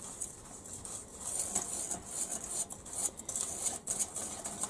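Light, irregular clicks and taps of small objects being handled at a work table, over a faint high hiss.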